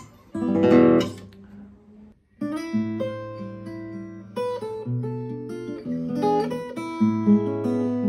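A nylon-string classical guitar plays a loud strummed chord that rings out and fades. After a brief silence, a steel-string cutaway acoustic guitar starts a fingerpicked piece, single melody notes over plucked bass notes.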